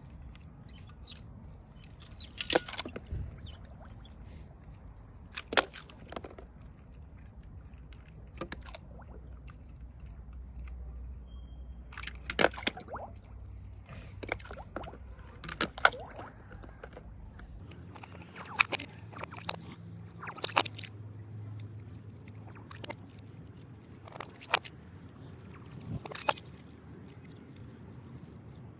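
Diecast toy cars clattering and knocking as they come off a ramp and land, one after another: about a dozen sharp knocks, two or three seconds apart, over a low rumble.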